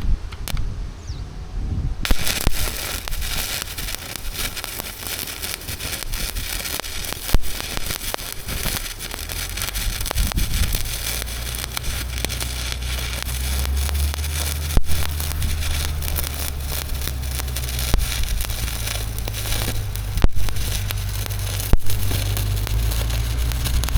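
Electric arc welding on steel, a continuous crackling arc that starts about two seconds in and runs on in long stretches. A steady low hum joins underneath about ten seconds in.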